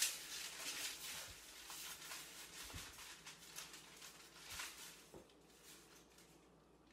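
Parchment paper rustling and crinkling under hands working a piece of cookie dough on a wooden tabletop, with a few soft thumps. It quietens near the end.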